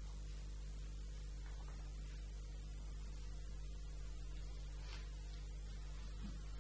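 Steady electrical mains hum, with a faint even hiss above it.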